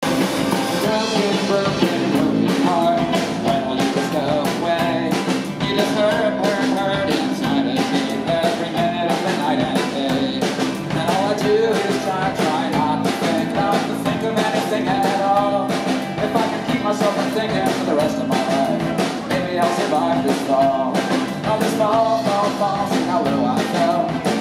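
Live rock band playing a song: strummed acoustic guitar, drum kit keeping a steady beat, and keyboard and bass, with a singer's voice over the top.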